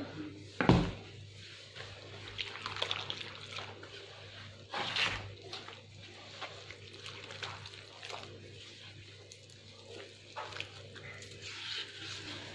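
A hand mixing liquid into flour in a wooden bowl: wet, crackly rustling and squelching as the flour is worked into a dough, with a thump about a second in and another knock about five seconds in.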